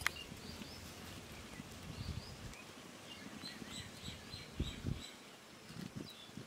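Small birds chirping faintly in short calls throughout. A steel spoon gives one sharp clink against a steel bowl at the start, and a few soft, dull thuds follow about four and a half seconds in as it presses boiled mangoes.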